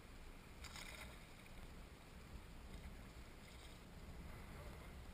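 Quiet outdoor ambience on open water: faint wind rumble and water noise, with a brief soft hiss about a second in and a fainter one later.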